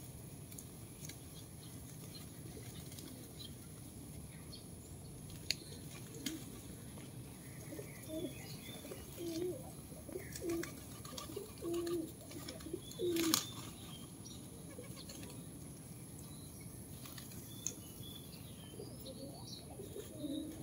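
A flock of feral pigeons: a string of short, low coos from about 8 to 14 seconds in, with wings flapping and a few sharp claps as birds take off and land. A steady low background noise runs underneath.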